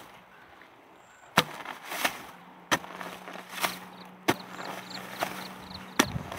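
A long-handled digging spade chopping into hard, dry paddy soil: about six sharp strikes at uneven intervals, dug while opening a rice-field crab burrow.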